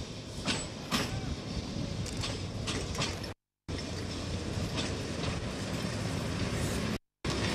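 An approaching tram running on its track, a steady rumble with several sharp clicks and clacks from its wheels over the rails. The sound cuts out briefly twice, at edit breaks.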